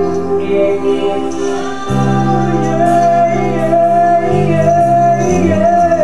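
A man singing a slow melody into a handheld microphone over instrumental backing of sustained chords; the bass note changes about two seconds in, and from about halfway a held, wavering vocal line comes in.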